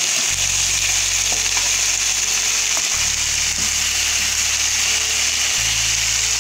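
Fish pieces sizzling steadily as they fry in hot oil in a nonstick frying pan, with a few faint ticks of tongs turning them. Low held background-music notes change twice underneath.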